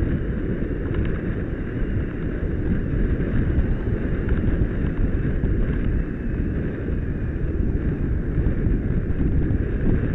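Wind buffeting the microphone of an action camera strapped to the back of a radio-controlled model glider in flight, heard as a steady, loud, low rushing noise.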